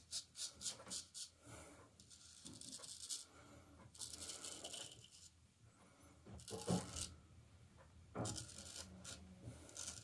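Straight razor scraping through a lathered full beard. A quick run of short strokes comes first, then slower, longer scrapes.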